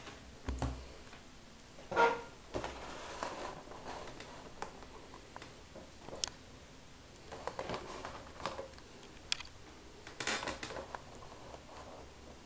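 Faint scattered clicks and handling noise from a hand-held camera and a tablet being moved about and tapped, with one short louder knock about two seconds in.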